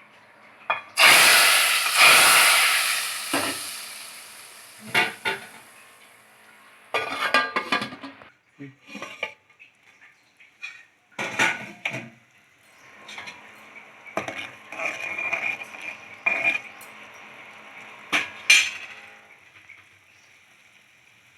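A spice tempering of mustard seeds, cumin, curry leaves and asafoetida in hot oil sizzling loudly about a second in, fading over several seconds, followed by a metal spoon clinking and scraping against the pan in short clatters.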